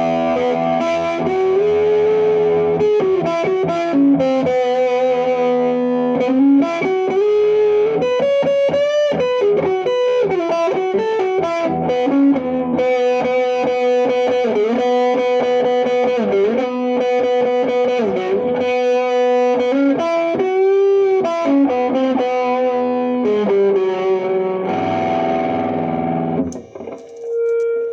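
Electric guitar played through a homemade one-knob fuzz pedal turned up near full, guitar volume full up, into an amp. It gives a thick, distorted, sustaining fuzz tone with long held notes, string bends and vibrato, and the playing stops near the end.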